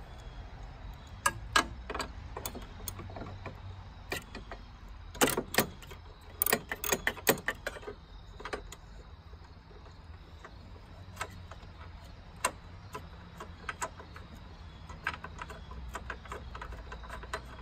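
Socket ratchet clicking in short irregular runs as the bolts of a horn bracket are loosened, with a dense flurry of clicks about five to seven seconds in.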